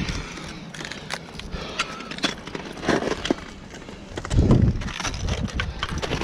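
Ice axe and crampon points tapping and scraping against waterfall ice in a scatter of short, sharp clicks. A low rumbling burst on the microphone comes about four and a half seconds in.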